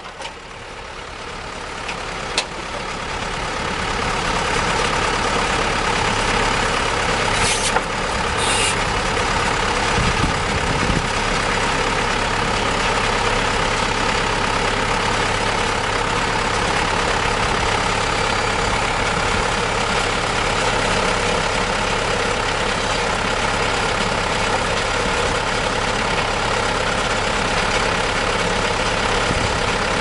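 Engine of a 2001 Ditch Witch ride-on trencher running; it rises in speed and loudness over the first few seconds, then runs steadily at that higher speed.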